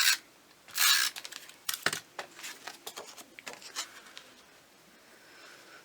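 Snail tape-runner adhesive being swiped onto cardstock in two quick strokes, the first at the very start and the second about a second in, followed by a few sharp clicks and lighter taps of paper being pressed and handled.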